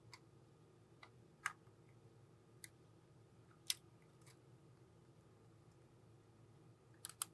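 Small, sharp clicks of tweezers and tools against the small parts and flex-cable connectors of a compact camera being taken apart, a few spaced clicks and then a quick pair near the end, over a faint steady hum.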